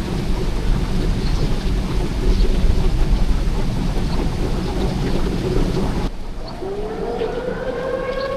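Rain and thunder from a storm, which cut off abruptly about six seconds in. Then a tornado warning siren starts winding up, its pitch rising and then levelling off.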